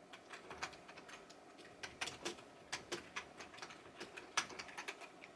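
Typing on a keyboard: faint, irregular key clicks, several a second.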